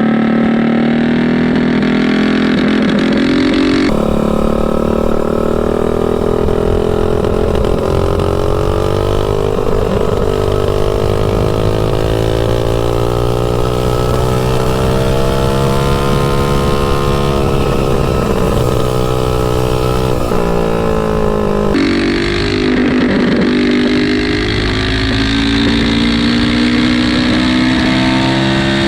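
Mini bike's 225cc Tillotson single-cylinder engine running under load through an open header pipe while riding, its pitch falling and rising with throttle. The engine note changes abruptly twice, about 4 seconds in and about 22 seconds in.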